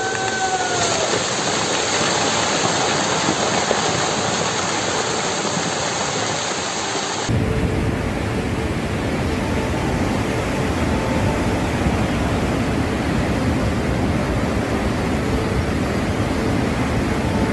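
Steady rushing noise of a landslide, rock and debris pouring down a rain-soaked mountainside, recorded on a phone. About seven seconds in it cuts to a second recording with a deeper rumble.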